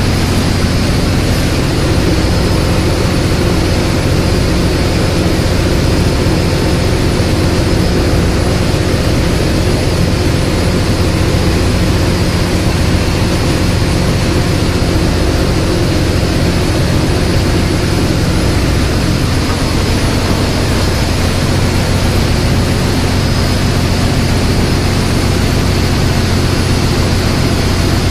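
Loud, steady drone of a cargo ship's engine-room machinery running, with a constant low hum under it.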